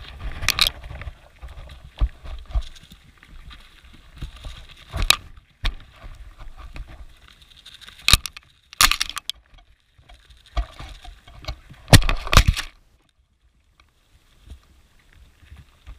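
Sheep nosing and bumping a camera lying on the ground in feed grain: irregular knocks, clicks and scrapes as muzzles push against the camera body, over a low rumble, with a short quiet spell near the end.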